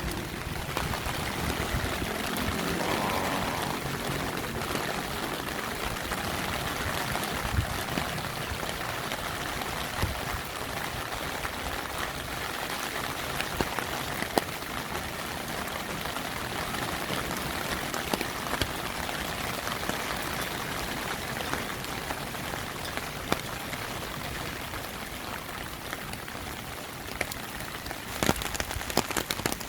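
Heavy rain falling steadily, an even hiss with individual drops ticking sharply on a hard surface; a cluster of louder drop hits comes near the end.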